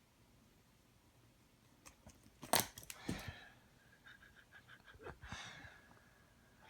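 Fidget spinner being batted by a cat: a few sharp clicks and a louder knock about two and a half seconds in, then short whirring rattles with a thin steady tone, once just after the knock and again around five seconds in.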